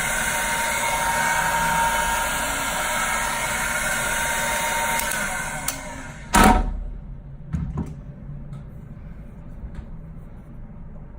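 Heat gun blowing hot air with a steady hiss, which dies away about six seconds in; a loud knock follows, then a few lighter knocks and clicks.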